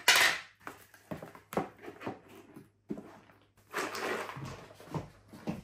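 Loose cardboard jigsaw puzzle pieces being handled in and tipped around a cardboard puzzle box: a rustling slide of pieces at the start, scattered light clicks, and another rustle about four seconds in.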